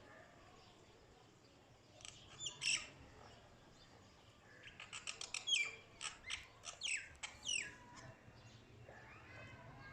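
Mynah bird calling: a few sharp calls about two seconds in, then a rapid run of loud squawks and whistles, many falling in pitch, from about five to eight seconds.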